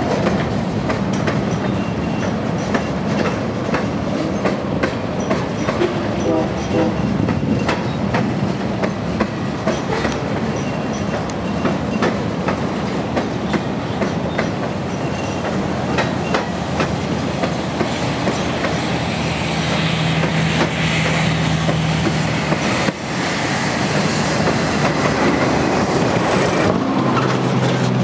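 Freight cars of a passing train rolling by: a steady rumble of steel wheels with repeated clicks as they cross rail joints.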